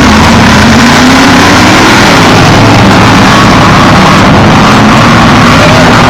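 Off-road race vehicle's engine at high throttle, very loud. Its pitch rises over the first two seconds, then holds.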